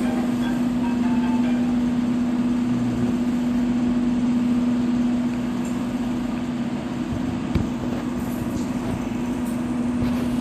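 Terrazzo floor-grinding machine running steadily with a constant hum and one clear steady tone, a single click about three quarters of the way in.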